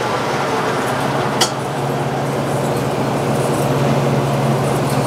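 Drill press running with a steady hum, and one sharp metallic clink about one and a half seconds in.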